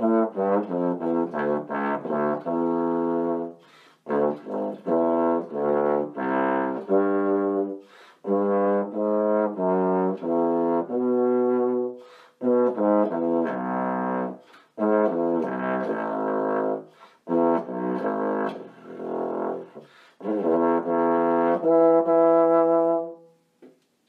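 Unaccompanied trombone played solo: a quick run of short notes, then phrases of longer held notes separated by brief pauses for breath, closing on a long held note.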